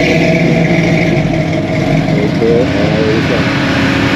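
Car engine running steadily with some revving.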